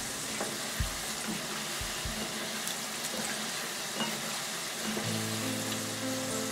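Chicken pieces deep-frying in hot oil, a steady sizzle. Background music comes in about five seconds in.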